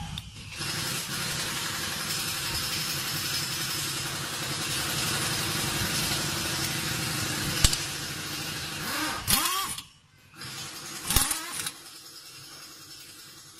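Pneumatic impact wrench hammering on the U-bolt nuts that clamp a new leaf-spring pack, a long steady rattling run that stops about nine and a half seconds in, followed by a short second burst around eleven seconds.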